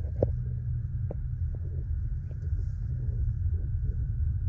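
Steady low rumble of a car driving on an icy road, heard from inside the cabin, with a few light knocks, the sharpest a moment after the start.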